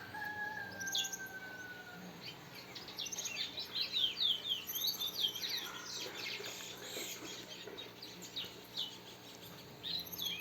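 A bird singing: a long, slightly falling whistle, then a quick run of high, downward-sweeping chirps about two and a half seconds in, with a few more near the end.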